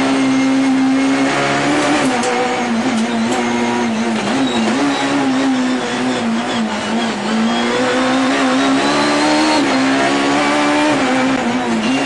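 Peugeot 306 Maxi's naturally aspirated 2-litre four-cylinder engine at high revs under load, heard from inside the cabin. Its note holds high and dips briefly and recovers several times, around the middle and again near the end.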